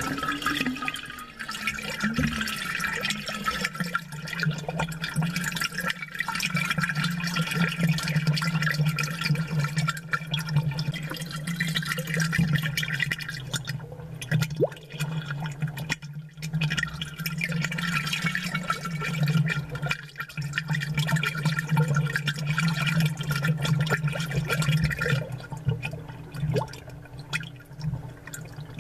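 Aquarium water bubbling and splashing, with dense crackling from bursting air bubbles over a steady low hum from the tank's air pump. A higher hiss in the bubbling drops away near the end.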